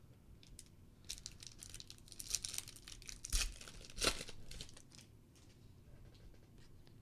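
Foil pack of Panini Prizm World Cup soccer cards being torn open and crinkled in the hands. A run of rustles builds through the first four seconds, with the loudest rips about three and a half and four seconds in, then only light handling as the cards come out.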